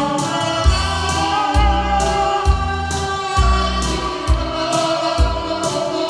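Saxophone playing a slow Korean trot melody in long held notes with vibrato, over a recorded backing track with a steady drum beat of about one bass hit a second.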